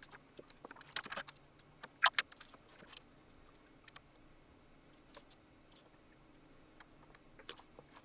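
Scattered light clicks and taps of hardware being handled while working on a Digidesign 003 console, with a quick cluster about a second in and the loudest pair of clicks just after two seconds.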